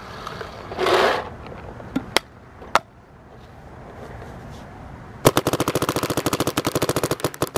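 Dye M2 MOS Air electronic paintball marker firing in semi-automatic, its trigger pulled rapidly by hand: a few single shots about two to three seconds in, then from about five seconds a rapid, even string of shots. A short hiss sounds about a second in.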